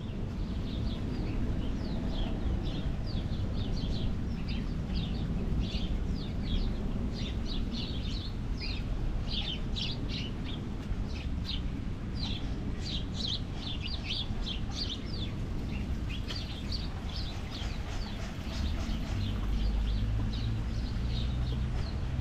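Small birds chirping in quick, short high notes, many in a row, over a steady low outdoor rumble.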